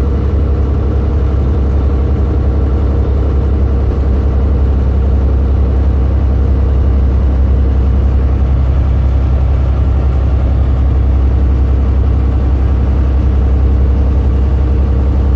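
Truck's diesel engine running steadily under load up a grade: a loud, even, low drone heard from inside the cab.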